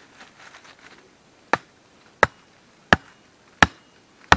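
A wooden stake being driven into the ground with sharp, evenly spaced blows: five strikes about two-thirds of a second apart, starting a second and a half in, after some faint rustling.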